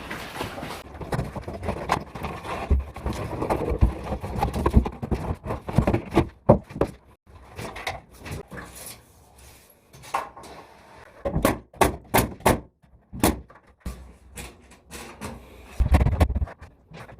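A series of irregular knocks, clicks and thumps, denser in the first half and sparser later, with a heavier thump near the end.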